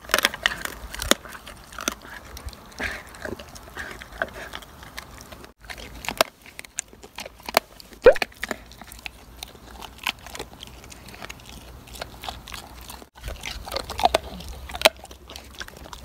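Doberman chewing and crunching a hard homemade dog treat, with irregular sharp crunches and bites.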